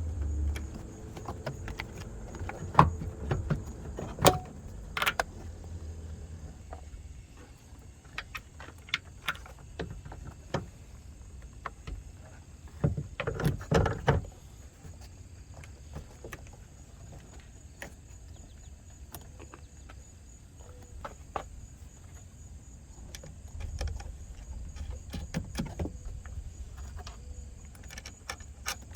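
Scattered light clicks and knocks from hands handling parts, with a dense run of them about 13 seconds in, over a low rumble that comes and goes.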